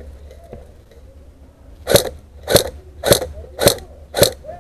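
Airsoft rifle firing single shots in quick succession, five sharp cracks about two a second, starting about two seconds in.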